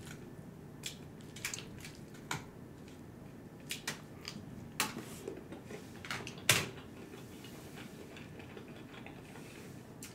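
A plastic fork scraping and tapping against aluminium foil takeaway trays while picking up stir-fry noodles, giving a series of short clicks and crinkles. The loudest click is about six and a half seconds in. Chewing runs underneath.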